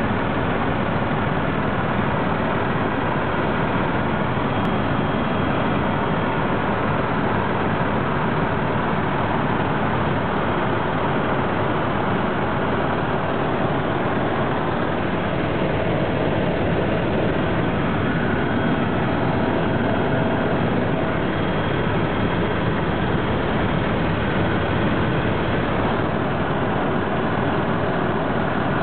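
Helicopter in flight heard from inside the cabin: a steady, unbroken drone of engine and rotor noise.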